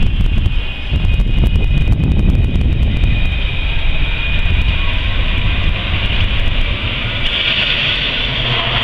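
Street noise as a Luas light-rail tram approaches slowly along street track, with heavy wind rumble on the microphone. A higher hiss grows louder near the end.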